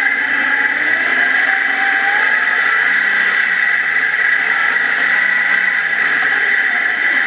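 Off-road buggy driving over a dirt track: its engine runs steadily under constant wind and road noise at a camera mounted by the front wheel, the engine note rising slightly and falling back midway.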